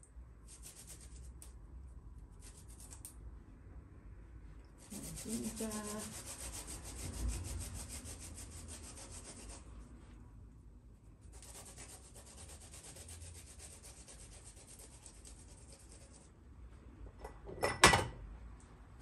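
Fresh garlic rasped on a handheld flat grater in several spells of quick scraping strokes, the longest lasting about four to five seconds. A sharp knock near the end is the loudest sound.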